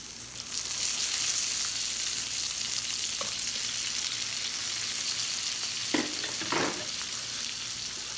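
Sliced meat sizzling on a round tabletop Korean barbecue grill: a steady high hiss that swells up about half a second in. Two short knocks about six seconds in.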